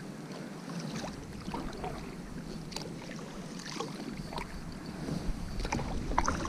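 Light knocks and clicks of gear being handled in a canoe, scattered and irregular, the loudest a knock shortly before the end.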